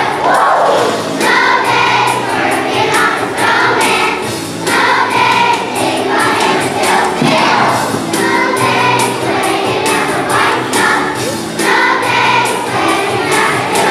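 A large choir of second-grade children singing a holiday song in unison over a musical accompaniment with a steady beat.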